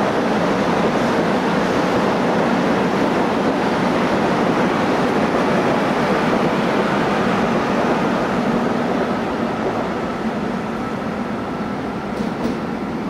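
Electric commuter train cars of Seoul Metropolitan Subway Line 1 running past close by at a station, a steady loud rush of wheel and running noise that eases off in the last few seconds. A faint steady whine is heard in the second half.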